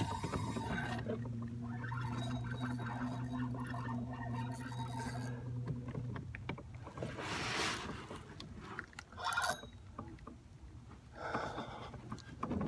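Boat motor running with a steady low hum, cutting out about six seconds in; a few short bursts of hissing noise follow.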